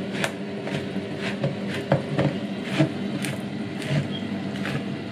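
Manual handheld can opener being cranked around the lid of a tin of coconut milk, its gear and cutting wheel clicking about twice a second as it cuts, over a steady low hum.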